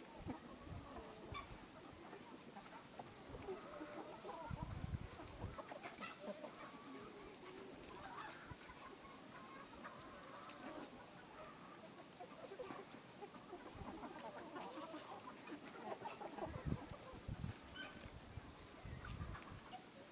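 Several hens clucking, short calls overlapping and scattered through the whole stretch. Low rumbles come in twice, about five seconds in and again near the end.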